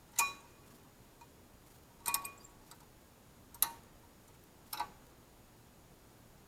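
Four sharp metallic clicks, each with a brief ring, about a second or two apart: small metal brake hardware, such as new pad clips, being handled and set in place.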